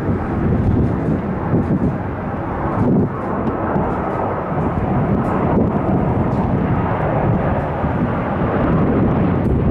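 Airbus A330 MRTT's twin Rolls-Royce Trent 700 turbofans on low final approach: loud, steady jet rumble that grows slightly louder as the aircraft comes closer.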